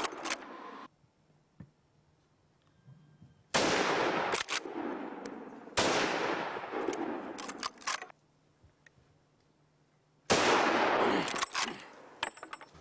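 Three gunshots at driven wild boar, the second about two seconds after the first and the third some four seconds later, each trailing off in a long echo through the woods. Fainter sharp cracks follow each shot.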